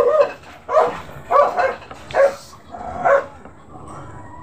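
A dog barking repeatedly in short, high yips, about six in quick succession with gaps of roughly half a second to a second, fading off near the end.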